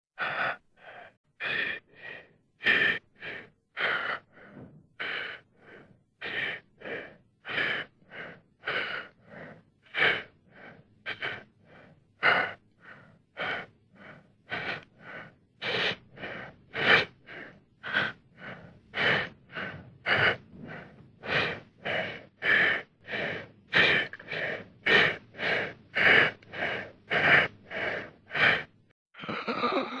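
A person's heavy, rapid panting: quick in-and-out breaths at about two a second, alternating louder and softer, the breathing of someone out of breath or frightened. Near the end it gives way to one longer, drawn-out breath.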